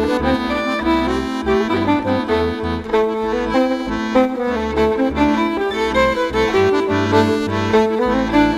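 Accordion playing an instrumental folk tune: a moving melody over the left hand's pulsing bass and chord buttons.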